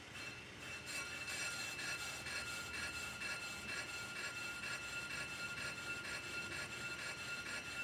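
Pro-Cut on-car brake lathe cutter bits scraping both faces of a spinning front brake rotor, with a pulsing pattern of about two beats a second rather than a constant sound: the rotor has runout and is not flat. The undamped rotor rings like a bell, a second ringing tone joining as the sound grows louder about a second in.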